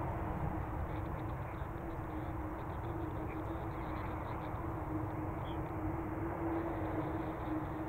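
Turbofan engines of an Airbus A300-600ST Beluga running at low power as it rolls slowly along the runway. The sound is a steady distant jet rumble with a constant hum.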